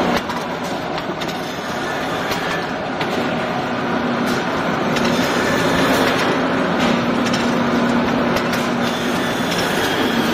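Brass hinge-forming machine running, a steady mechanical hum with irregular sharp clacks of metal as brass hinge leaves are fed through it.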